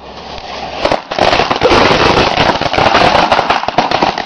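Firecrackers going off: a fizzing hiss builds for about a second, then a dense, rapid string of sharp cracks and pops.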